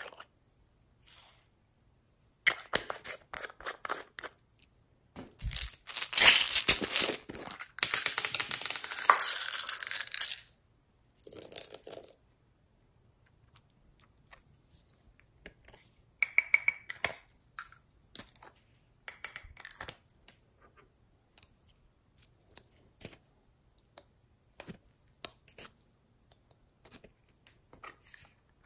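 Hands squishing, stretching and poking slime, making crackly popping and sticky tearing sounds. The sound comes in short runs, loudest and densest for several seconds in the middle, then thins to scattered clicks and pops.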